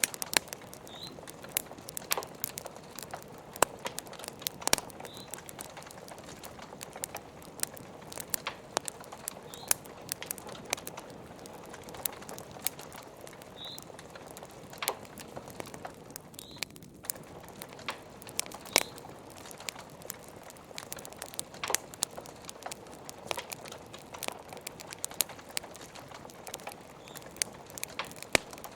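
Wood fire crackling in a fireplace: irregular sharp pops and snaps over a soft steady hiss, with a few brief high squeaks.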